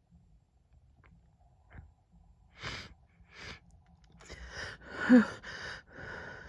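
A woman's hay-fever sneeze building up but not coming. Two short, sharp breaths in come about halfway through, then a run of gasping breaths with a loud voiced "ah" falling in pitch about five seconds in.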